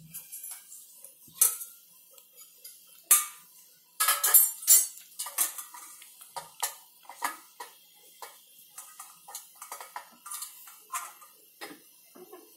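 Pan of sweet corn kernels at a rolling boil: irregular pops and clicks of bubbling water, with a few louder ones in the first five seconds.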